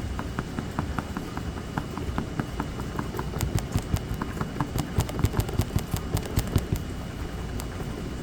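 A rapid, irregular run of light, sharp taps, several a second, over a steady low rumble.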